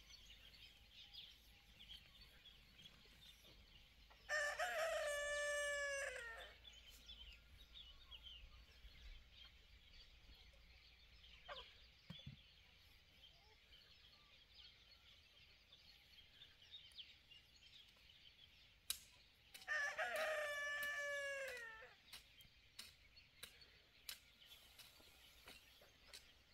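A rooster crowing twice, about fifteen seconds apart; each crow lasts about two seconds and drops in pitch at the end.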